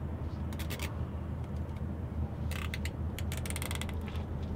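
Plastic zip ties being cinched around the bottom of a truck's shock absorber boot: quick runs of ratcheting clicks as each tail is pulled through its lock, once about half a second in and in longer runs between two and four seconds in. A vehicle engine runs with a steady low rumble underneath.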